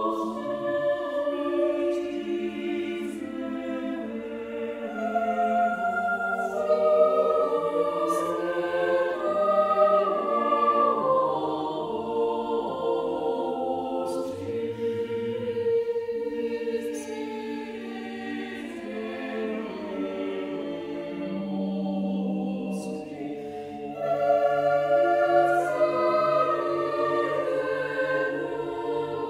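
Choir singing a slow sacred piece, several voice parts holding long notes together. It grows softer partway through, then the voices come in louder again near the end.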